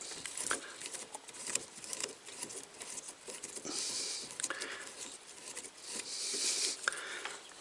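Small clicks, taps and scratchy rubbing of metal fridge burner parts being handled and worked on, with a couple of short hissy scrapes about four and six seconds in.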